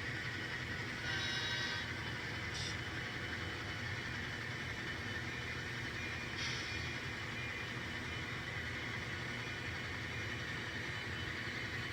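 Model train locomotive running on the layout track with a steady motor hum, with a few brief higher clicks about one, two and a half and six and a half seconds in.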